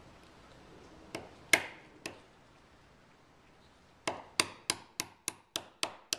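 Hammer striking a steel pin punch to drive a rivet pin out of a roller chain link held in a bench vise. Three separate blows come in the first two seconds, the second the loudest, then a quick, even run of taps about three a second from about four seconds in.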